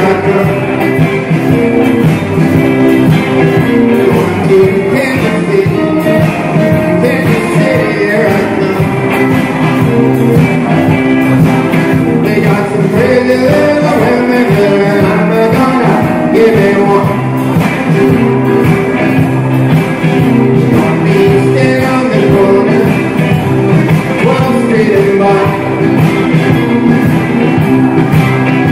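Rock and roll band playing a song with a singer, loud and without a break.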